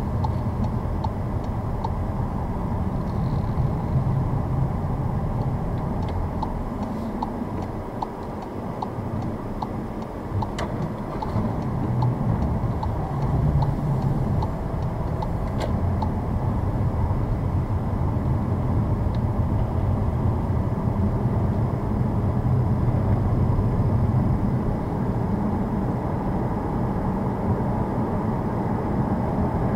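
Car cabin noise while driving on a snow- and slush-covered road: a steady low rumble of tyres and engine, with scattered light ticks during the first half.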